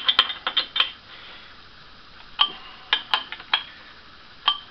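Sharp metallic clicks and clinks from a 7/16-inch wrench turning a nut on threaded rod, drawing the nut and washer down into a recess drilled in a wooden board. A quick run of clicks comes in the first second, then single clicks spaced irregularly.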